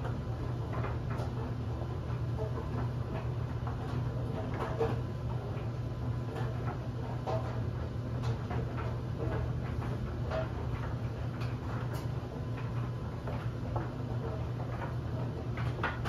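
LG DLE7300WE electric clothes dryer running, its drum turning with a steady low hum as a load of bed linens tumbles. Light, irregular ticks and taps are scattered throughout.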